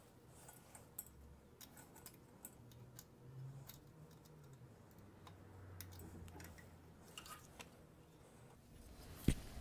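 Faint small clicks and metal taps of a feeler gauge blade being worked against the ignition breaker points, trying to get into a gap too narrow for it, with one sharper click near the end.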